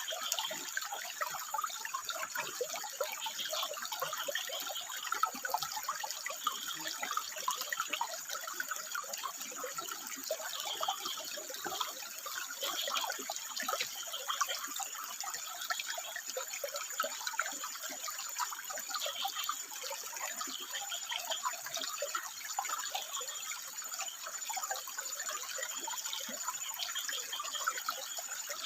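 Water trickling and splashing over rocks, a steady stream sound full of small splashes.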